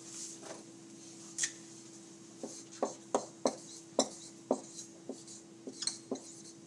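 Writing on a board: a string of short, sharp taps and clicks, about three a second, starting about two and a half seconds in, over a steady low hum in a small room.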